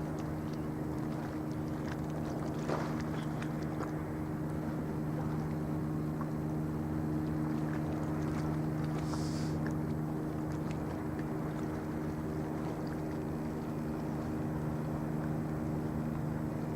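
Steady low drone of a ship's diesel engine, an even hum with no change in pitch, over a constant wash of noise; a brief high hiss about nine seconds in.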